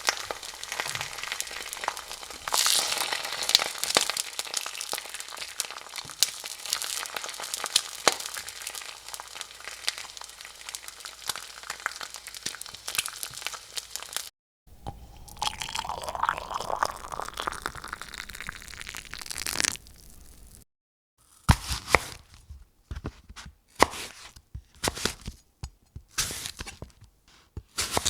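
Three separate kitchen sound effects in turn: about fourteen seconds of dense crackling, then about six seconds of a noisy sound rising steadily in pitch, then a run of sharp, irregular knocks.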